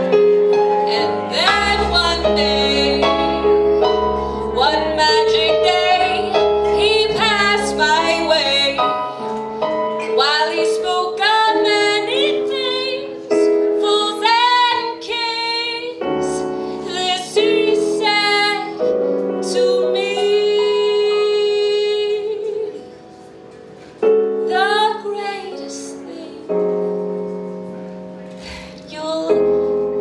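A woman singing a slow ballad live with piano accompaniment. She holds one long note about twenty seconds in, and the music briefly drops away a few seconds later.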